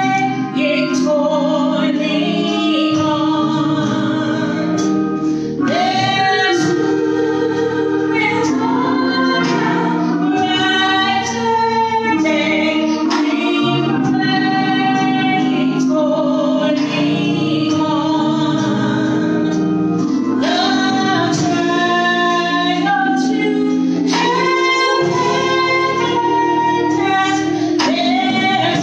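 Gospel singing in a church service: a woman's voice leads, with other voices joining, over steady accompaniment.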